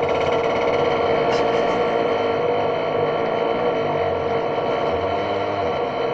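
A wheel squeaking continuously, one steady high-pitched squeal that does not break.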